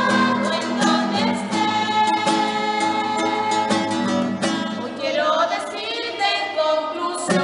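A woman singing to her own strummed acoustic guitar, with a small group of voices singing along.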